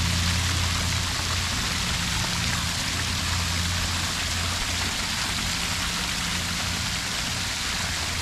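Fountain jets spraying and splashing into a basin, a steady rush of falling water, with a steady low hum underneath.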